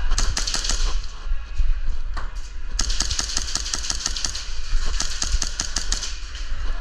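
Airsoft guns firing rapid strings of shots: a quick burst in the first second, a few single shots around two seconds in, then a long fast string of shots running for about three seconds.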